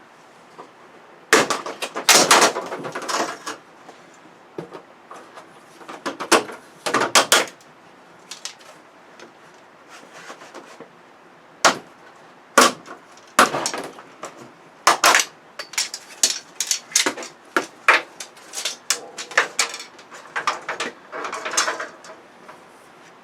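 Parts of a Vizio LED television being pried and pulled apart by hand: sharp clicks, snaps and clatters at irregular intervals, bunched into short runs.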